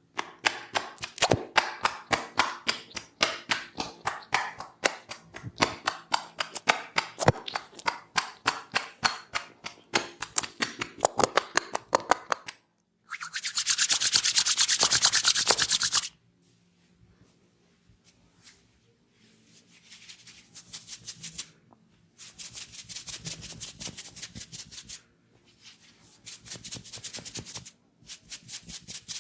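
Massage hands tapping rapidly, several strokes a second, for about twelve seconds, then bursts of fast rubbing a few seconds long, the first and loudest about halfway through.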